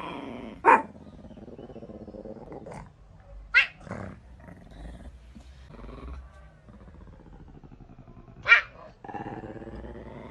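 A dog barking sharply three times, with lower growling between the barks.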